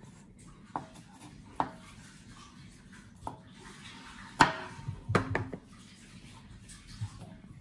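Kitchen knife slicing a raw potato, the blade knocking on a wooden cutting board in a handful of irregular strokes, with a quick cluster just after the loudest one about four and a half seconds in.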